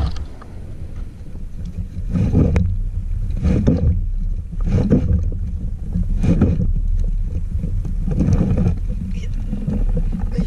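A man breathing heavily with effort as he ties off and lifts a heavy mesh bag full of crabs. The loud breaths come about every one to two seconds over a steady low rumble.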